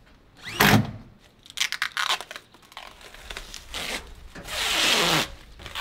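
Clear protective plastic film being peeled off painted steel roof trim: long ripping pulls about four and a half seconds in and again at the end, with crinkling between. A short loud burst comes about half a second in.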